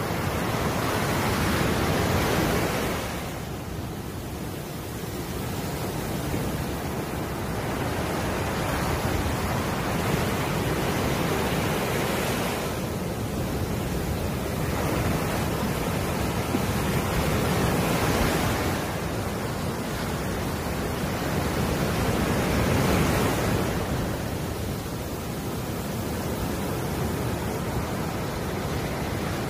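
Ocean surf breaking and washing up a sandy beach: a steady rush that swells and eases back every several seconds as each wave comes in.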